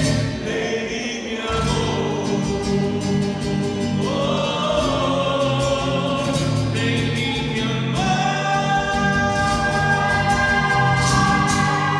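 Male vocal group singing an Andean folk song in harmony with acoustic guitar, in long sustained notes. The song closes on a chord held over the last few seconds.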